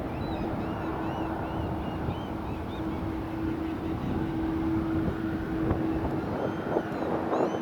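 Jet aircraft engine noise: a steady rumble with a constant hum under it, wind buffeting the microphone, and faint high chirps.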